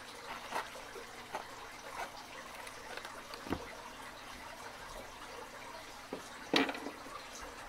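Light handling noises: scattered soft clicks and taps as a small zippered tool case is closed and put aside on a bench, with a slightly louder knock about three and a half seconds in and another about six and a half seconds in.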